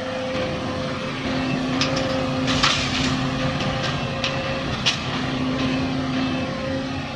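Heavy diesel earthmoving machinery running steadily, with a handful of sharp knocks in the middle, the loudest about two and a half seconds in.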